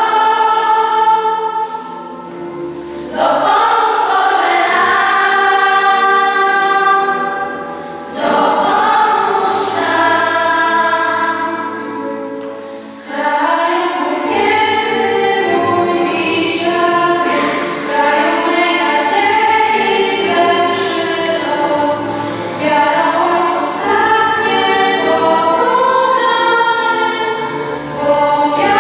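A children's choir singing a song in long held phrases, with short pauses between phrases every few seconds.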